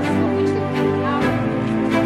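Background music with a steady beat and sustained chords, the bass line changing every half second or so.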